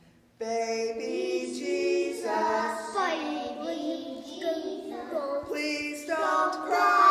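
Young children singing a Christmas song, starting about half a second in.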